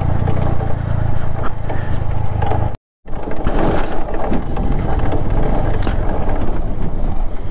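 Motorcycle engine running at low revs while riding over a rough, slippery dirt track, with a steady low rumble and constant rattling and crunching from the ground. The sound breaks off completely for a moment about three seconds in.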